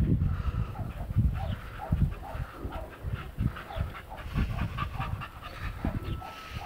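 Pit bull panting quickly and steadily, about three breaths a second, after running with a football, over low rumbling thumps.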